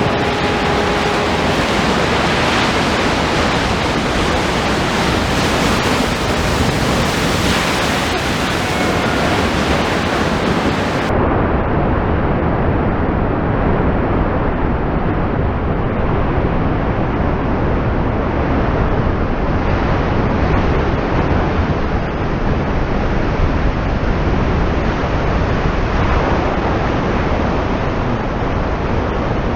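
Large ocean waves breaking over a rock jetty: a dense, steady roar of surf and spray mixed with wind on the microphone. About eleven seconds in the sound turns muffled, losing its high hiss.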